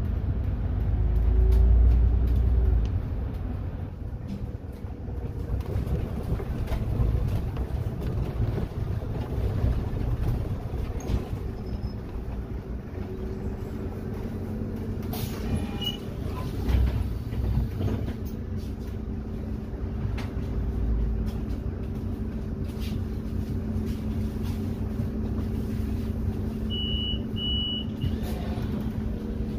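Solaris Urbino 12 IV city bus running, with continuous engine and road rumble that is heaviest in the first few seconds and then settles into a steadier hum with a faint low whine. Two short high beeps sound near the end.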